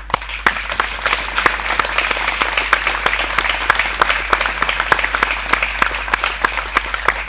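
Audience applause: many people clapping together, breaking out at once and holding steady.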